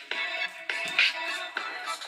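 Background music with a regular beat, accented about once a second.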